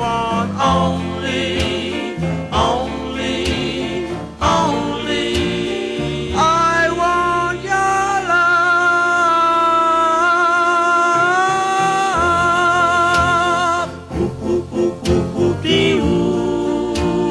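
Soul oldies record playing: a full band with singing, including long held notes with vibrato near the middle.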